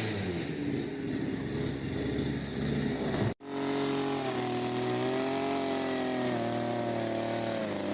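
Grass-cutting machine's engine running while mowing, its pitch wavering up and down with the load. It drops out abruptly for an instant about three seconds in, then carries on.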